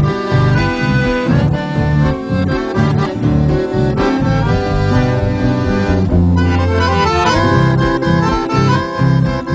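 Instrumental music: an accordion plays the melody over a steady, pulsing bass line, with no singing.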